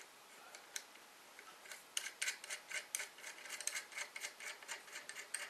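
Quick light metallic ticks and clicks, about five a second, starting about two seconds in, as a nut is spun by hand down a threaded steel rod.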